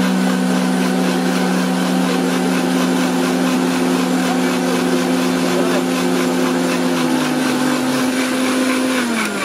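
Electric blender motor running steadily, blending watermelon into juice. Near the end its hum drops in pitch as the motor is switched off and winds down.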